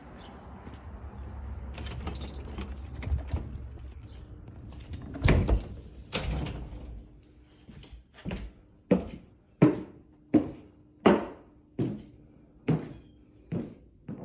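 A door swinging shut with two loud knocks. Then footsteps climb wooden stairs, one sharp step about every 0.7 seconds.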